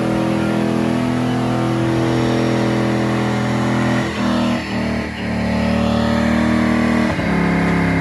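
5.3-litre LS V8 held at high revs under heavy load, running steadily, with brief breaks in the note about four and seven seconds in.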